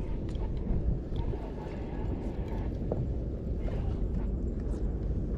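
Steady low rumble of wind buffeting the microphone, with a few faint clicks scattered through it.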